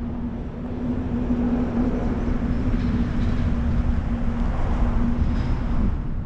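Car rolling slowly across a gravel lot, heard from a hood-mounted camera: a steady engine hum over low rumble and tyre noise on gravel. The hum cuts off near the end and the sound drops away.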